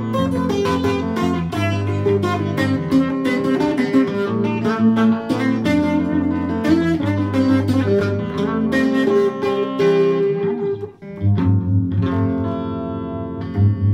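Electric guitar being played: a stream of picked notes and chords, with a brief break about eleven seconds in before it carries on with ringing, repeated notes.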